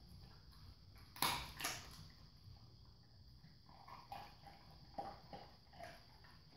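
A dog licking and nosing at a vinyl floor for leftover crumbs after a meal. There are two loud, short licks about a second in, then several softer ones.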